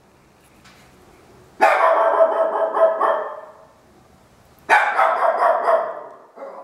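A dog barking in two bouts of several quick barks, the first about a second and a half in and the second near five seconds.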